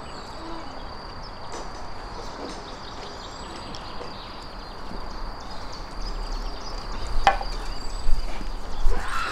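Outdoor background hiss with a thin steady high whine, and in the last two seconds a few sharp knocks as kebab is cut on the table with a knife.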